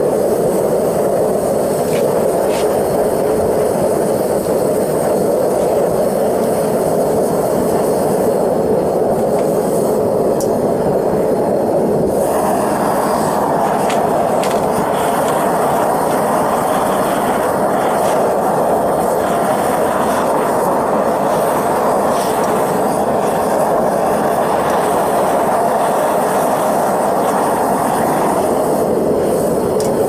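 Two propane torches firing into a small crucible melting furnace, a loud steady roar. About twelve seconds in the roar turns brighter as the furnace lid comes off, and it dulls again a second or two before the end when the lid goes back on.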